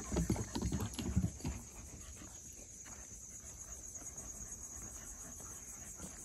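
Steady high-pitched insect chorus, with footsteps knocking on a wooden boardwalk for the first second and a half.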